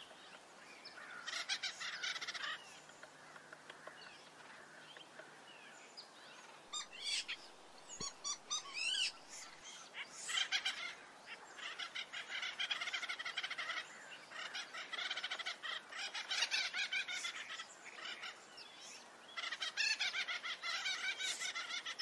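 Acorn woodpeckers calling: bursts of rapid repeated calls a few seconds long, coming again and again with short pauses, and a single sharp tap about eight seconds in.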